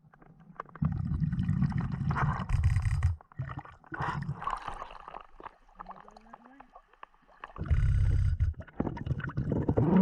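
A diver breathing through a Blu3 Nemo hookah regulator underwater. Exhaled bubbles rumble and gurgle past the mouthpiece in two long bursts, one starting about a second in and another near the end, with softer bubbling and hiss between.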